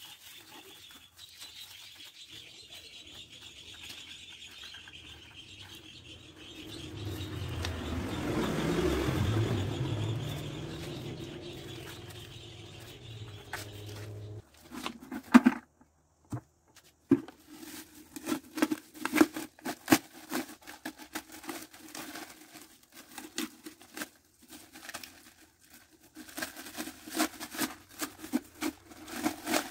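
A steady background noise swells and fades, then cuts off about halfway through. After that comes a run of sharp knocks, scrapes and rustles as a plastic bucket mould is worked loose from a freshly cast cement pot and a plastic sheet liner is pulled out of it.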